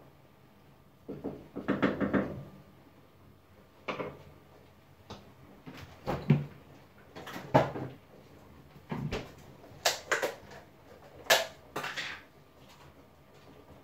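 Kitchen clatter: about a dozen separate knocks and clunks of pots, lids and utensils being handled, with short quiet gaps between them.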